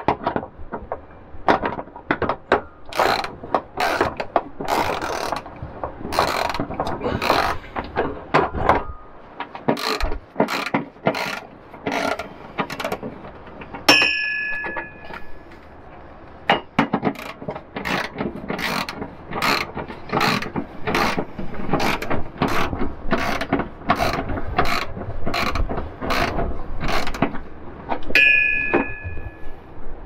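Socket ratchet wrench clicking in short, rapid back-and-forth strokes as a bolt is tightened, with a brief ringing tone twice, about halfway and near the end.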